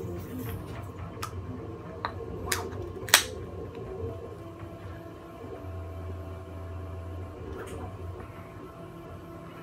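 Stepper motors on a CNC-converted Grizzly G0704 benchtop mill hum steadily as they drive the table slowly along its axis. A few sharp clicks come about two to three seconds in, the last the loudest.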